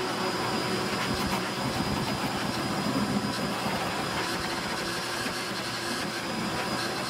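Wet/dry shop vacuum running steadily, its nozzle drawn over the car's floor carpet, a constant rushing hiss with a faint high whine.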